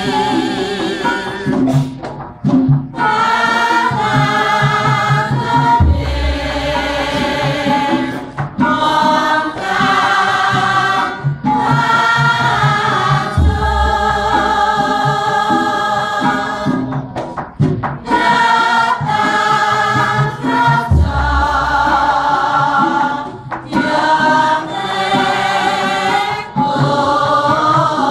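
A group of men and women singing Javanese palaran tembang together, held notes with ornamental bends, accompanied by gamelan. A deep gong stroke sounds about every seven and a half seconds, three times, marking the ends of phrases.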